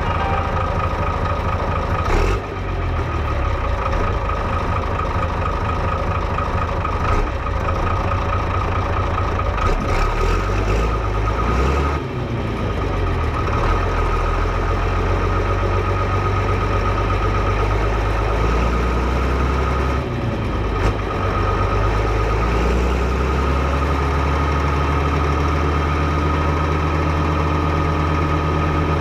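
Fiatagri 115/90 tractor's six-cylinder 5.9-litre FIAT diesel engine running, its speed shifting a few times before settling into a steady run in the last few seconds.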